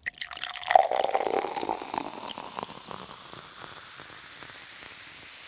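Liquid poured, with a crackling fizz that is loudest in the first two seconds and dies away by about three seconds in, leaving a steady faint hiss.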